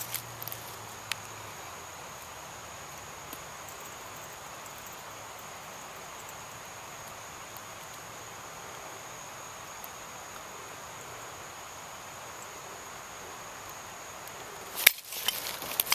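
Insects, such as crickets, trilling steadily in a single high-pitched note. About fifteen seconds in the trill stops, and there is a sudden loud knock followed by rustling and crunching in dry leaves.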